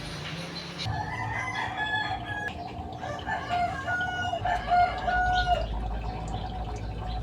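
A chicken calling: a string of short, pitched calls lasting about four and a half seconds, with a low rumble coming in near the middle.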